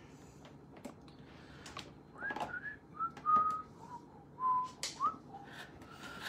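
A person whistling a short string of notes, some sliding upward, with a few light clicks and taps of handling in between.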